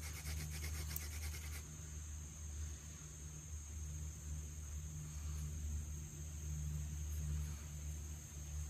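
Hand drill spinning, a basswood drill plug rasping against a cedar hearth in quick rhythmic strokes, stopping about a second and a half in. A steady high insect drone continues throughout over a low rumble.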